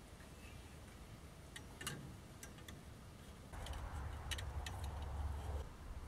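Light metallic clicks and taps as a spirit level and small clamp are fitted onto a band sawmill blade, a few at a time. About halfway through, a low rumble comes in and lasts roughly two seconds.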